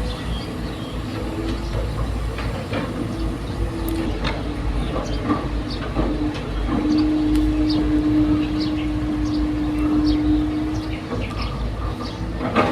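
Heavy earthmoving machinery, likely an excavator, running with a steady engine hum that grows stronger for a few seconds partway through. Scattered metallic clanks and knocks sound over it throughout.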